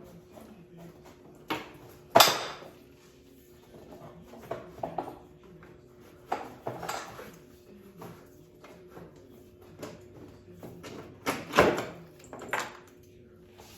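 Irregular metallic clinks, knocks and rattles as a brake cable and its housing are fed down through an ATV's frame, with two louder knocks, about two seconds in and near the end.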